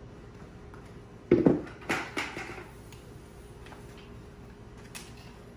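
A plastic wash bucket being carried and set down: a loud knock about a second in, then a few clattering knocks just after, over a faint steady hum.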